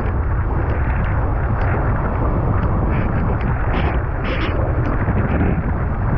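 Wind buffeting the microphone in a steady heavy rumble, over the rush of water under a windsurf board sailing through choppy water, with short splashes now and then.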